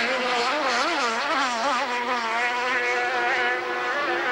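Racing powerboat engine at high revs, its pitch swooping up and down quickly for the first couple of seconds, then holding steadier.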